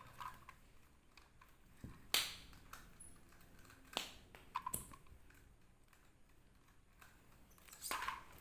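A few scattered sharp clicks and knocks of plastic toy parts being handled, the loudest about two seconds in, with quiet between them.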